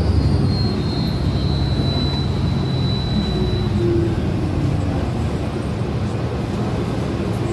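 MTA city bus driving, heard from inside the cabin: a steady engine and drivetrain rumble, with a faint high whine that fades out about halfway through.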